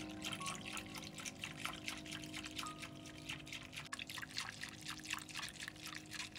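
Liquid being poured, trickling and dripping in a dense run of small splashes, over faint sustained background music.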